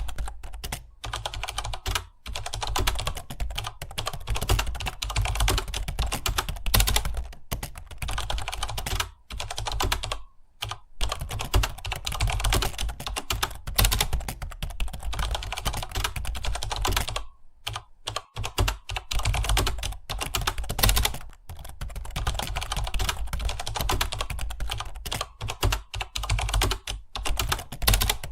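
Fast typing on a computer keyboard: a dense run of key clicks that stops briefly twice.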